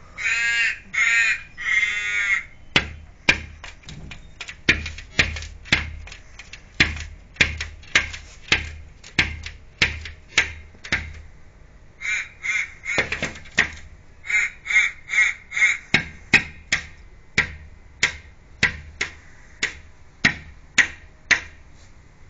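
Crow cawing harshly three times, then rapping on window glass with sharp knocks about two a second as it attacks its own reflection in a mirrored window. Two quick runs of short caws break in about halfway through.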